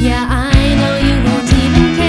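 Background music: a loud pop-rock song with guitar, a steady beat and a wavering melodic line.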